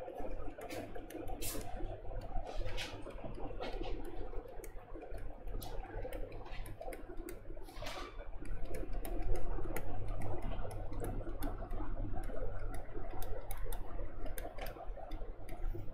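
Quiet room tone with a steady electrical hum and scattered faint clicks and taps.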